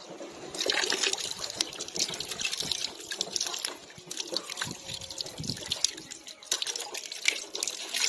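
Water running from a tap and splashing over hands being washed beneath it, starting about half a second in and splashing unevenly as the hands move under the stream.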